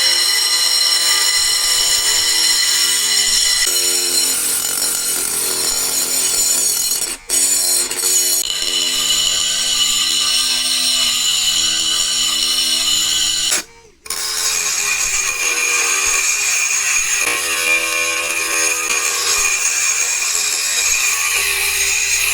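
Homemade DC-motor drill running at high speed with a high whine, its accessory bit working against material. The pitch shifts between three stretches, with two brief breaks about seven and fourteen seconds in.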